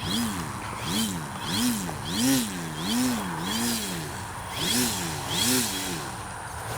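Electric RC plane's brushless outrunner motor and 13-inch propeller being throttled up and down about eight times, each surge rising then falling in pitch. The throttle is blipped to rock the plane free of the grass it landed in.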